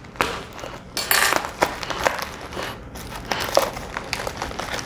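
Grey plastic courier mailer bag crinkling and rustling in irregular bursts as hands squeeze and pull it open, loudest about a second in.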